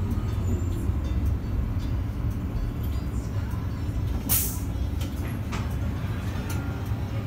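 Solaris Urbino 15 city bus driving, heard from inside at the front: a steady low engine and road rumble, with one short, sharp hiss of air from the air brakes about four seconds in.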